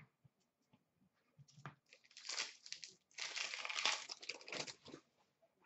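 Foil wrapper of an Upper Deck hockey card pack crinkling as it is handled and torn open. A few short crackles come about a second and a half in, then two longer bouts of crinkling from about two to five seconds in.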